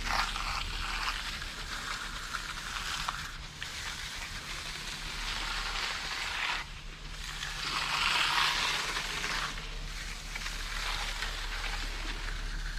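Hand finishing tools scraping and swishing across wet concrete in long strokes, in swells of a few seconds that break off sharply several times, over a steady low hum.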